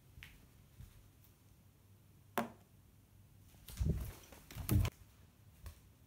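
Handling knocks and clicks of a plastic Rubik's cube: a sharp click, then two louder clusters of knocks, and a small tap near the end, as the cube is moved and set down on a hard surface.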